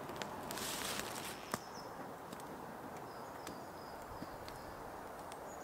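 Wood campfire crackling with occasional sharp pops, the clearest about one and a half seconds in, over a brief rush of noise under a second in. A small bird chirps in runs of short high notes in the background.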